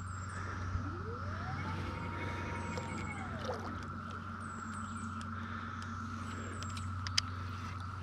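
Steady droning chorus of Brood X 17-year periodical cicadas, under a low steady hum. About a second in a whine rises, holds and falls away by about three and a half seconds, and a sharp click comes near the end.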